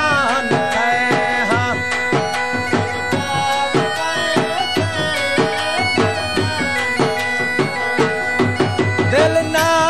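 Background folk music: a reedy wind-instrument melody over a held drone, with a steady drum beat.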